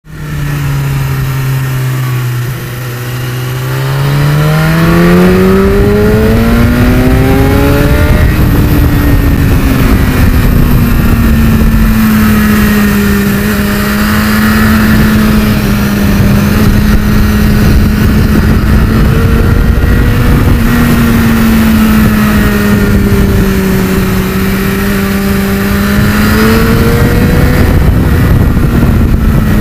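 Sport motorcycle engine heard onboard, held in third gear. The revs climb steadily a few seconds in, then hold fairly steady with gentle rises and falls, under heavy wind rush.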